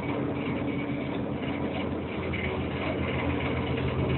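Steady low drone of a cargo ship's engine and machinery heard on the navigation bridge, with a constant hum and a few steady low tones, growing a little stronger about halfway through.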